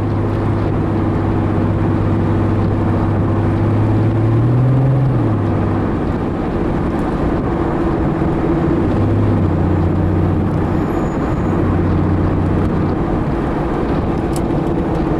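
Supercharged 3.5-litre V6 of a 2001 Plymouth Prowler running under way, with steady road and wind noise. The engine pitch rises briefly about four seconds in, then drops back and holds steady.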